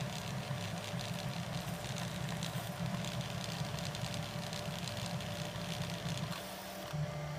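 Stepper motors of a home-built Prusa Mendel v2 3D printer buzzing in a constantly shifting pattern as the print head moves while printing PLA, with a thin steady tone under it. About seven seconds in, the buzz changes to a steadier drone.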